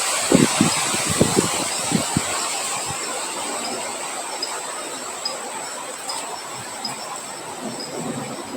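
Rain and wind hiss slowly fading, with a few low gusting thumps in the first two seconds, leaving a steady high insect drone and a soft chirp repeating under a second apart.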